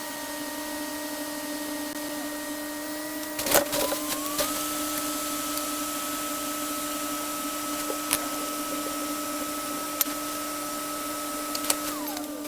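Hot-air rework station blowing with a steady hiss and a motor whine. A click comes a few seconds in, after which the fan's whine rises to a higher pitch and holds. It drops back down near the end, with a few light clicks in between.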